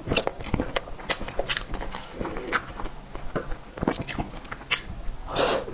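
Close-miked eating sounds: an irregular run of small clicks and smacks of chewing and biting, with a longer, louder rustling noise near the end.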